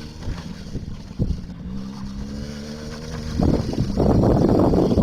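A child's ATV engine running, its pitch rising and falling with the throttle. About three and a half seconds in, a loud rushing noise takes over and swamps it.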